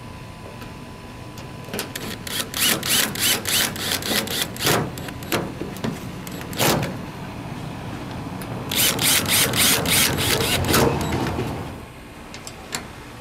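Long Phillips screws being driven into a pickup's tail light assembly with a power screwdriver, in two runs of rapid pulsing bursts, one about two seconds in and one about nine seconds in.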